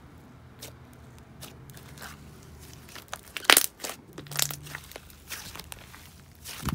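Hands squishing, pressing and stretching a thick clay slime with big jelly cubes in it, giving irregular clicks and pops. The loudest come about halfway through and near the end.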